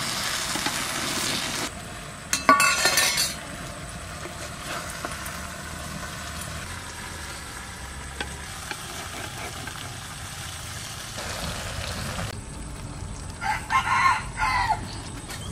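Tiny river-fish curry sizzling in a black earthen pot over a wood fire, a spatula stirring it; the water has cooked off and the fish fry in their own released oil. A brief loud call rings out about two and a half seconds in, and another short call comes near the end.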